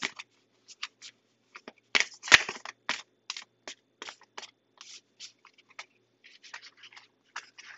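Tarot cards being shuffled by hand: an irregular run of short card snaps and slides, with one sharper snap about two seconds in.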